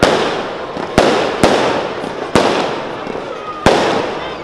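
Aerial firework shells bursting overhead: five sharp bangs at irregular intervals, each followed by an echoing rumble that dies away. A faint short whistle comes just before the last bang.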